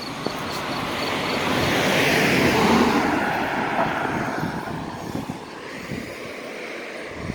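A car driving past on the road, getting louder to a peak a couple of seconds in, then fading away.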